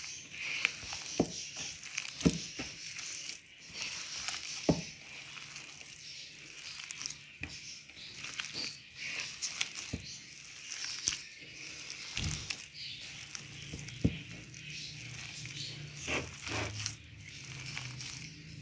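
A hand squeezing and kneading mashed boiled potato with spices in a bowl: soft, irregular squishing and crackling, with scattered sharp clicks.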